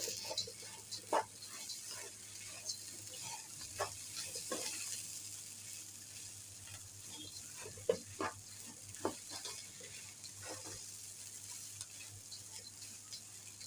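Rice frying in sauce in a pan: a steady sizzle, with scattered scrapes and knocks as it is stirred.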